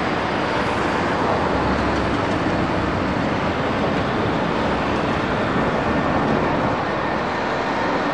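Boeing 747 jet airliner's four engines at takeoff power during the takeoff roll, a steady, even roar.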